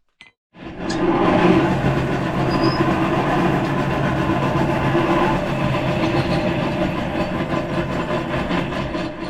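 Forge running: a steady rushing noise with a low hum in it, starting just under a second in and holding until it drops away at the end.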